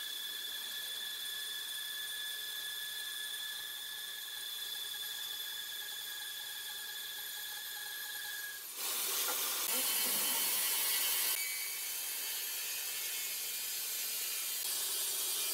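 Horizontal band sawmill blade cutting through a large slab of old hardwood: a steady high whine over a hiss, which about nine seconds in gives way abruptly to a louder, rougher hiss of sawing.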